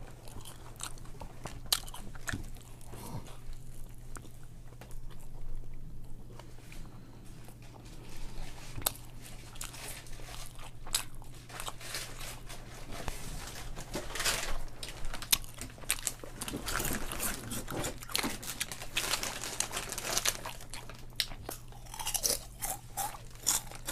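Close-up eating sounds: a person chewing and biting into food, with many crisp crunches and mouth clicks, thickest in a run of crunching past the middle.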